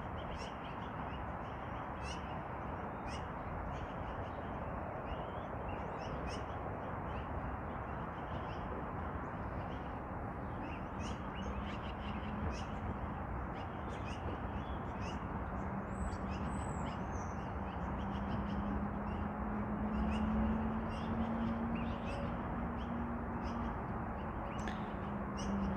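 Yellow-billed magpies calling, short calls repeated again and again, over a steady background hiss. A low steady hum comes in about halfway and grows louder toward the end.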